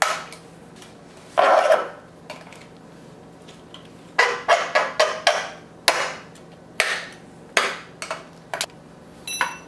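Scissors cutting plastic zip ties: a series of sharp snips and clicks, with a short rasp about a second and a half in and a quick run of snaps about four to five seconds in.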